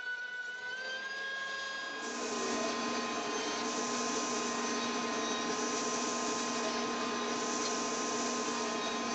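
Benchtop thickness planer running with a steady whine whose pitch dips briefly near the start. About two seconds in it gives way abruptly to a SawStop 1.75 hp cabinet table saw running with its blade spinning free, a louder steady motor whine.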